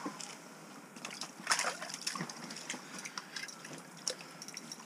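Irregular water splashes and wet slaps as a burbot is hauled up out of an ice-fishing hole and flops on the ice, loudest about a second and a half in.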